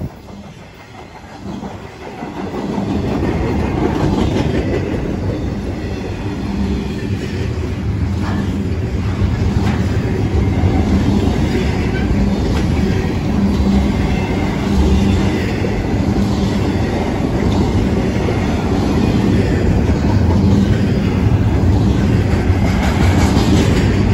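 Loaded intermodal freight cars rolling past on steel wheels: a loud, steady rumble of wheels on rail with scattered knocks, swelling about two seconds in.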